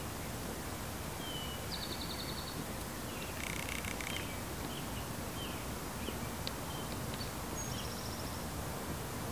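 Steady outdoor background noise with several faint, short, high chirps and trills scattered through it, including a brief pulsed call about three and a half seconds in.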